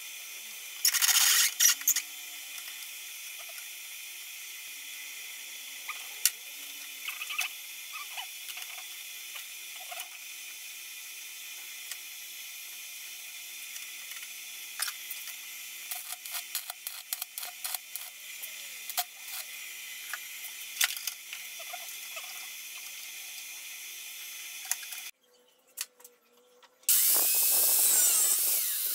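Metal parts being handled at a bench vise: scattered light clicks and taps of metal on metal over a steady hiss, with a loud burst of noise about a second in and another near the end.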